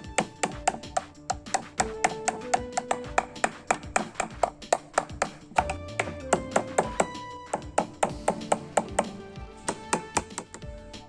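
Background music: a melody of short notes over a fast, steady clicking beat of about four or five clicks a second.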